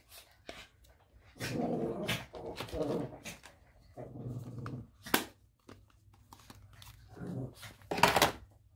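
Pet dogs vocalizing in several bouts of about a second each, with a loud, short sound about eight seconds in. Small clicks and taps come in between.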